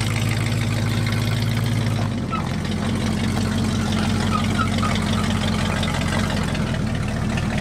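1979 Ford F-150's 460 big-block V8 running steadily, its tone shifting slightly about two seconds in.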